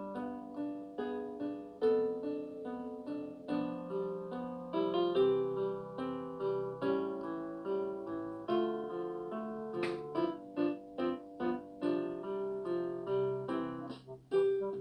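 Background music: a piano-style keyboard melody of steadily paced notes, each struck and fading.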